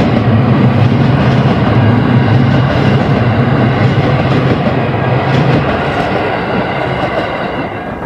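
Train running past with wheels clacking over the rail joints, loud and steady, then fading away near the end.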